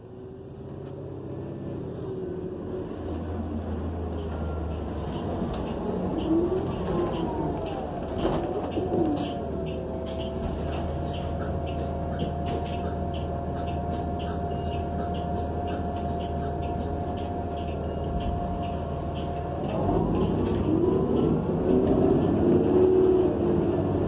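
The inside of a New Flyer XN40 city bus under way: the drone of its Cummins Westport L9N natural-gas engine and Allison B400R transmission. A whine climbs in pitch about six seconds in, holds steady for about ten seconds, then shifts and wavers near the end, over light rattling clicks from the cabin.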